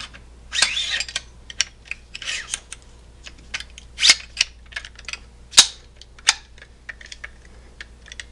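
Metal-on-metal clicks and sliding scrapes of an AR-15 bolt carrier group and charging handle being pushed into the upper receiver, with two short scrapes in the first few seconds and a few sharp, louder clacks around the middle.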